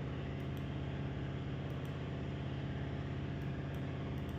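Steady low electrical hum under an even hiss, unchanging throughout: background noise with no distinct events.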